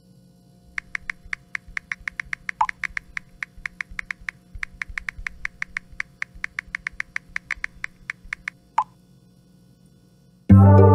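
Smartphone touch-keyboard clicks as a message is typed, about six taps a second with a short break midway, and two single message-alert pops, one near 2.6 s and one near 9 s. About ten and a half seconds in, a loud phone ringtone melody starts.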